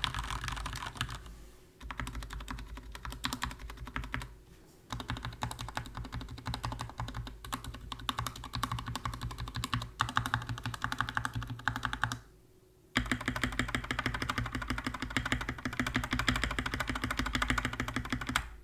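Fast typing on a Skyloong GK61x 60% mechanical keyboard with lubed Gateron Yellow linear switches and G.Skill Crystal Crown keycaps: rapid keystrokes in long runs, broken by three short pauses.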